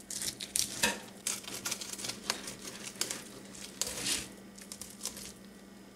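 Fillet knife cutting a black drum along its backbone on a plastic cutting board: a run of irregular scrapes and clicks as the blade works through the scaled skin and bones, easing off after about four seconds.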